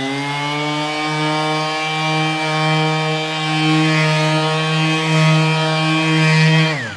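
Random orbital sander with a 1500-grit disc dry sanding a soft Plexiglass window: a steady, high motor whine that holds its pitch, then winds down with falling pitch near the end as the sander is switched off.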